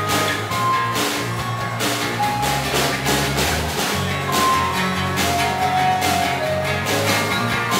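Live acoustic band playing: two acoustic guitars strummed in a steady rhythm over a snare drum, with a small keyboard holding a stepping melody line on top.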